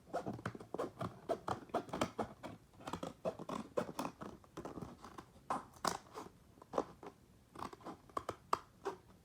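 Cardboard packaging being cut: a quick, irregular run of short crunching snips. They thin out and grow fainter over the last few seconds.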